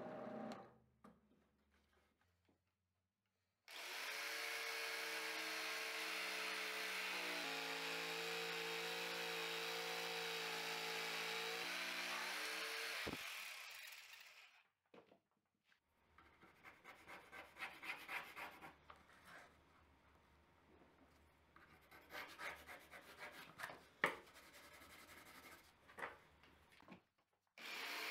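A power tool runs steadily on wood for about ten seconds, its pitch stepping a couple of times. After a pause come irregular hand rubbing and scraping strokes on MDF, with a few sharp clicks, the work of shaping and smoothing a rounded edge by hand.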